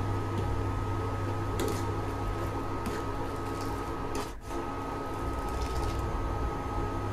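Electrolux induction cooktop running at its 1000 setting: a steady electrical hum with a high whine over it, which dips briefly about four seconds in. A ladle scrapes and taps lightly against the stainless steel pot as the curry broth is stirred.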